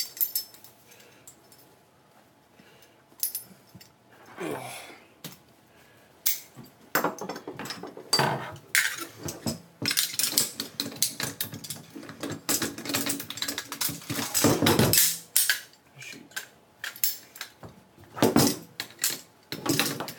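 Metal parts of an M4 carbine clicking and clinking as it is assembled by hand: a few scattered clicks at first, then a quick, busy run of clicks, snaps and clinks from about seven seconds in.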